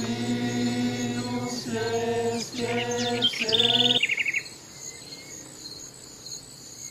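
Men's voices chanting together in long held notes, breaking off twice and stopping about four seconds in. Near the end of the chant there is a short two-part trilled call, and crickets and other insects keep up a steady high chirring.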